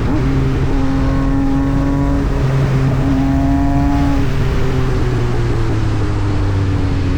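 Yamaha MT-09 SP inline-three engine running through an Austin Racing aftermarket exhaust, its note holding fairly steady with small shifts in pitch, then easing gradually lower over the second half.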